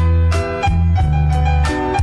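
Hip-hop instrumental beat between rap lines: keyboard chords over a steady bass line with drum hits.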